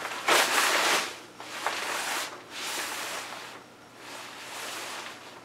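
A light jacket's fabric rustling as its elastic hem is forcefully lifted to clear it for a pistol draw. The loudest swish comes about a second in, followed by a few softer rustles as the wearer moves.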